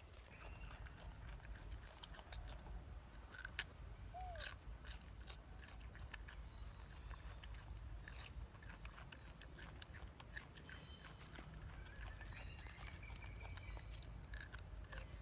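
Faint outdoor ambience: a steady low rumble with scattered sharp clicks and crunches, and several short high chirps and squeaks, most of them in the second half.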